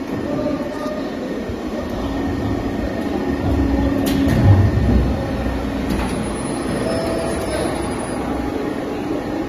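Roll forming machine for galvanized steel silo plates running, the sheet passing through its forming rollers: a steady mechanical hum, with a deeper rumble from about two to eight seconds in and a single sharp clank about four seconds in.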